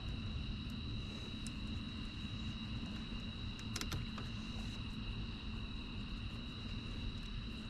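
Steady low background rumble with two steady high-pitched tones over it, and a few light clicks about four seconds in.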